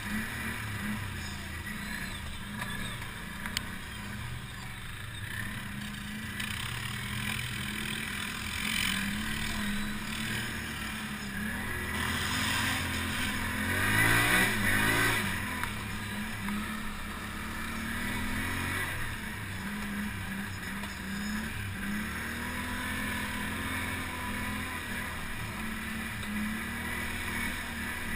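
ATV engine running at varying throttle, its pitch rising and falling as the rider works along the trail. It is loudest about halfway through, where the engine revs up and back down.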